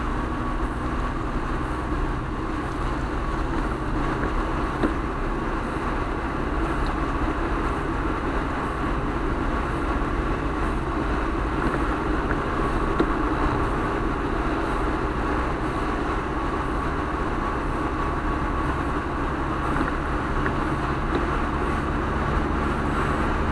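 Steady road and tyre noise of a car driving on a wet highway, heard from inside the cabin.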